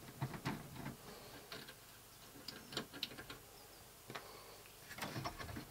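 Quiet, irregular light clicks and ticks of a screwdriver and small metal parts being handled in the open sheet-metal chassis of a VHS-DVD recorder.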